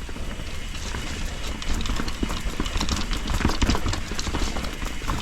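Enduro mountain bike riding down through a rock garden: irregular clatter and knocks of the bike rattling over rocks and roots, over a steady low rumble.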